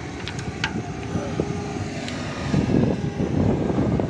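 Broken tandem drive chain of a Cat 120H motor grader clinking a few times as its links knock while it is pulled out of the tandem case, over a steady rumbling noise that grows louder about two and a half seconds in.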